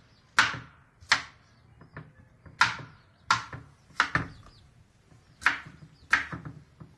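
Kitchen knife chopping tomatillos into large chunks on a plastic cutting board: about nine sharp chops at an uneven pace, roughly one a second or a little faster.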